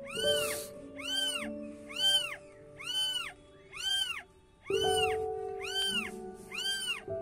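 Five-day-old kittens mewing in a steady string, one high cry about every two-thirds of a second, each rising then falling in pitch, over background music.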